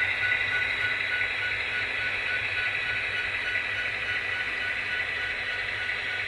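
Model diesel train running on layout track: a steady rolling hiss of the wheels on the rails with a thin, high, steady whine.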